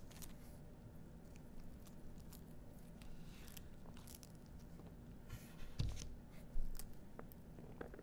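A pomegranate being torn apart by hand, its leathery husk and pith splitting and the seeds prised loose: faint, scattered crackling and tearing, with a couple of louder knocks about six seconds in.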